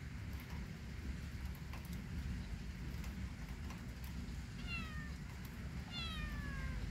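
Tabby kitten meowing twice in the second half, each meow falling in pitch, the second one longer.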